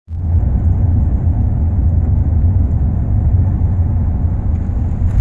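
Steady low rumble of a car on the road, road and engine noise from a moving vehicle.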